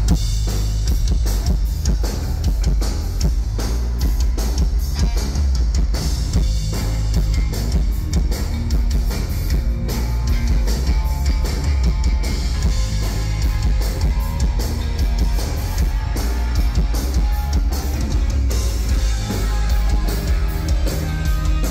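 Rock music with a drum kit, bass and guitar, playing loudly and steadily.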